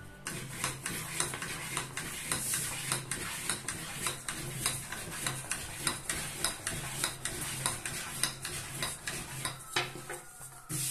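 Long, thin wooden rolling pin working dough on a countertop: a quick, irregular run of clicks and knocks, several a second, as the pin rolls back and forth and taps the counter.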